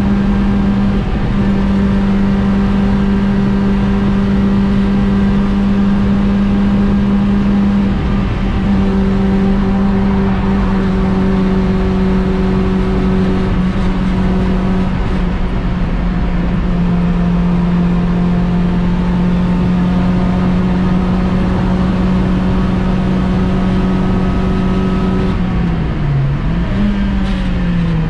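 VW Polo 6N1 track car's engine heard from inside its stripped, caged cabin, held at a steady high pitch for most of the time. Near the end the revs dip and come back briefly, then fall away.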